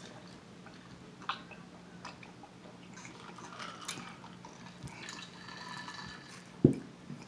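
Drinking sounds: quiet sips and swallows from glasses, with faint clicks. About six and a half seconds in, a single sharp thump as a glass is set down on the table.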